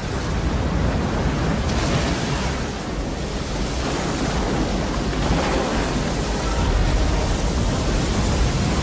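Sound effect of a giant tsunami wave: a loud, steady rush of surging water with a deep rumble underneath.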